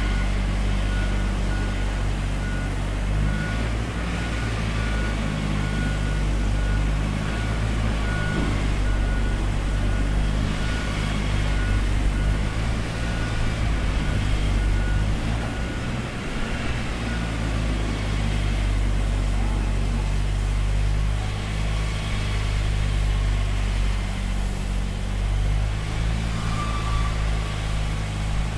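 Construction-site ambience: heavy machinery engines running steadily with a deep, even drone. A high repeating beep pulses for most of the first two-thirds.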